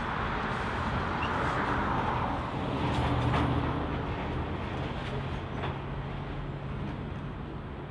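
Grain hopper wagons rolling past on the rails at the tail of a freight train, with a few sharp clicks from the wheels. The rolling sound eases off as the last wagon goes by.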